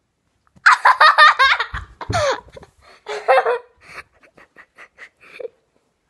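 High-pitched laughter: a run of rapid giggles starting about half a second in, another burst around three seconds, then shorter chuckles that trail off.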